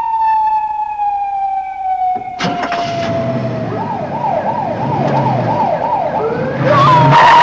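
Police car siren: a long wail slowly falling in pitch, then switching to a fast up-and-down yelp about two to three times a second, with the car's engine running underneath. A sharp knock comes about two and a half seconds in, and a loud rush of noise near the end.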